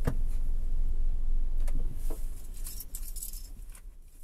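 Inside a car cabin: a low steady rumble with a few sharp clicks and short jingling rattles, fading out near the end.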